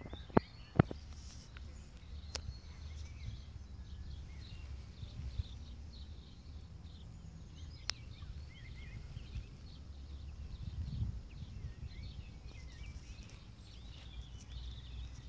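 Small birds chirping and twittering on and off, over a low steady rumble, with a few sharp clicks in the first second.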